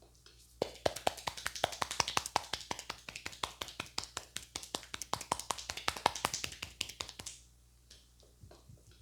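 A barber's hands tapping rapidly and rhythmically on a head during a traditional Indian head massage: sharp, even taps about six a second for roughly seven seconds, then stopping.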